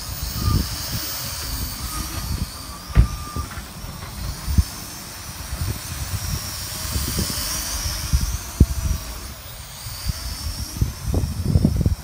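Small X3 Pioneer multirotor drone in flight, its motors and propellers giving a high whine that rises and falls in pitch as it manoeuvres. Wind buffets the microphone underneath.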